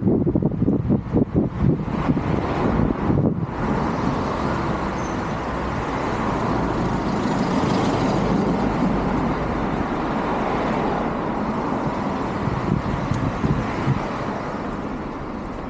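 Road traffic going by close at hand: tyre and engine noise from passing vehicles swells to a peak about eight seconds in, then slowly fades.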